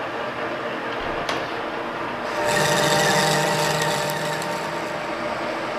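Metal lathe running, turning a steel workpiece, with a steady whine from its drive. About two and a half seconds in it gets louder and steadier tones come in, then eases off slightly.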